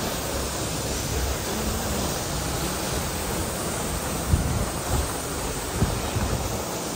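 Waterfall plunging into a pool: a steady rushing noise, with two short low thumps about four and six seconds in.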